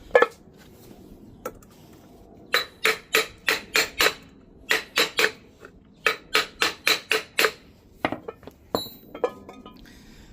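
Hammer taps driving a front crankshaft seal into a Ford 351 Windsor timing cover. There is a single strike near the start, then three quick runs of sharp taps at about three a second with short pauses between them, and a few last scattered taps near the end as the seal bottoms out.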